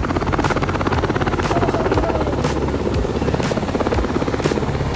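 Helicopter passing overhead: a steady rotor beat made of fast, even pulses.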